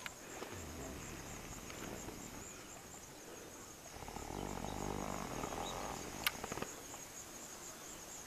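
Insects chirping steadily, a high pulsing trill. About four to six seconds in a soft rush of noise rises and fades, and a single sharp click follows a little after six seconds.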